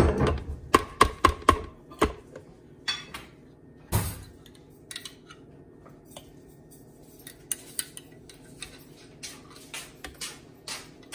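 Kitchen clatter of a jar and utensils knocking and clinking against a plastic food processor bowl as ingredients are added. A quick run of clicks comes first, then one louder knock about four seconds in, then scattered lighter clicks.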